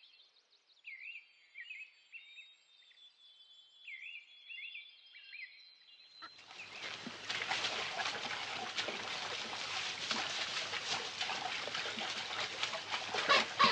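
Faint, repeated bird chirps over near quiet. About six seconds in, a steady rush of running water, a stream or waterfall, comes in and holds.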